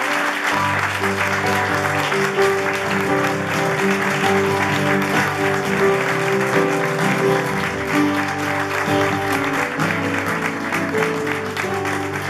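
Upright piano playing held chords while an audience applauds over it.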